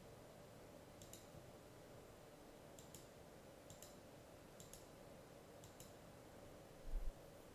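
Faint computer mouse clicks, about five of them, mostly in quick pairs, over a quiet steady room hum. A low double thump near the end is the loudest sound.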